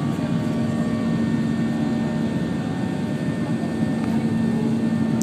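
Airliner cabin noise during the climb after takeoff: steady engine and rushing-air noise with a steady low drone.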